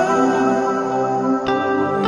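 Background music: held, sustained notes, with a fresh note struck about a second and a half in.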